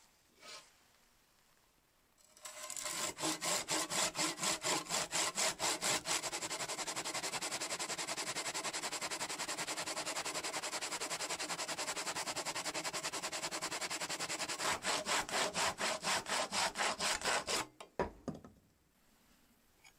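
Hand saw cutting through a wooden board in a homemade miter-saw guide: a long run of back-and-forth rasping strokes, about three a second, that starts about two seconds in and stops a couple of seconds before the end. A single thump follows shortly after the sawing stops.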